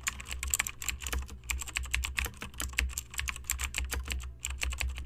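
Rapid, irregular light clicking, many small ticks a second, over a steady low hum.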